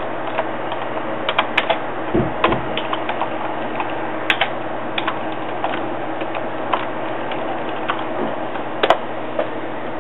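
Scattered, irregular light clicks and taps over a steady hum and hiss, with a low thump about two seconds in and a sharper click near the end.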